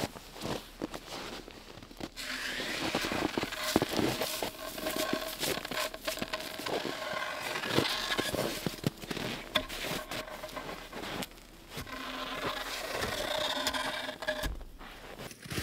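Boots crunching in snow and a wooden pole scraping and knocking as it is handled, with many small crackles and clicks.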